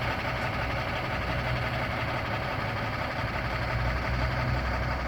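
Heavy engine idling steadily, from the truck hauling the loaded excavator or another machine on the site.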